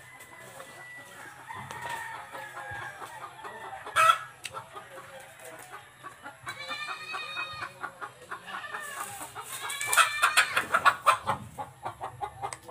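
A rooster crowing and chickens clucking, loudest about two-thirds of the way through. A short sharp knock sounds about four seconds in.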